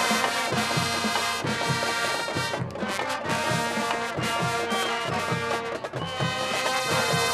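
Marching band playing: brass section holding chords over a steady drum beat.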